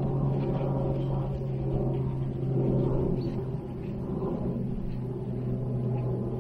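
Steady low engine drone at a constant pitch, with no rise or fall.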